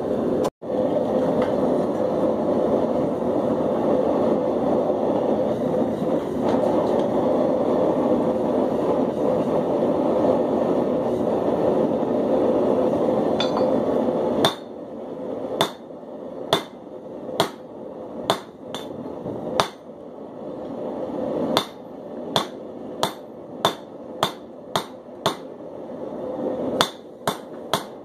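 A forge's steady roar while steel heats, then a blacksmith's hammer striking hot steel on an anvil about halfway through: sharp ringing blows about one a second, coming faster towards the end, drawing out a taper.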